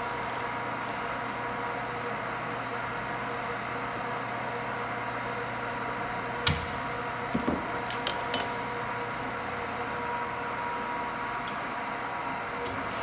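A steady hum of shop equipment, with a faint level whine at two pitches. About six and a half seconds in comes one sharp metallic clink, and a few lighter clicks follow as steel tools and parts are handled.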